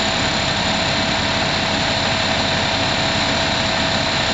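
Fire engine's diesel engine idling steadily, a constant low throbbing rumble with a thin steady whine over it.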